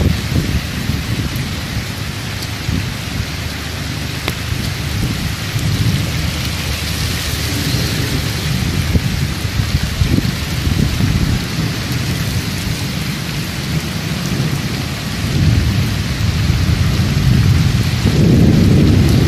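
Heavy rain falling, with floodwater running across a street, and a low rumbling underneath that grows louder near the end.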